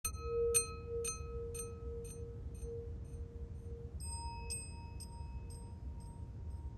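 Quiet music intro of soft, clock-like ticking chimes about twice a second over a held tone. The ticks fade, then start again over a higher held tone about four seconds in.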